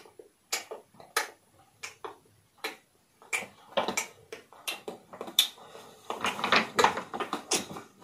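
A run of short, sharp clicks or taps, one every half-second or so at first, then coming faster and mixed with rustling in the second half.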